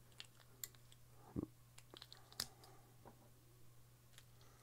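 Faint, scattered clicks and taps of batteries being pressed back into a small plastic battery holder against its spring contacts, about five sharp clicks spread out, the clearest about a second and a half and two and a half seconds in.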